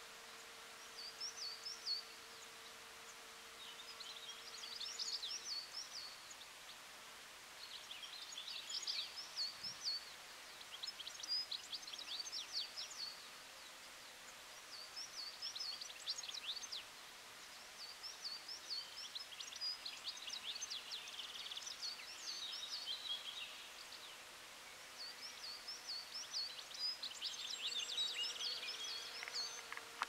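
A songbird singing, repeating short high twittering phrases every few seconds. A honeybee's steady low buzz can be heard during the first five seconds or so and again near the end.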